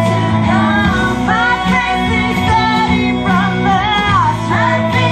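Live singing through microphones and a PA: sung melody lines held and bent over amplified music accompaniment.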